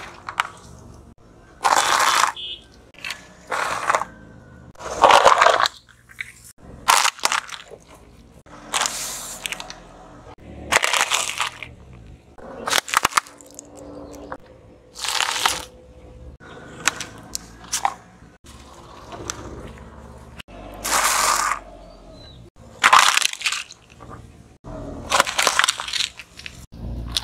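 A car tyre crushing small objects one after another: a series of short crunches and cracks, about one every one to two seconds, as plastic items, wrapped chocolate bars and paper crafts break and flatten under the wheel.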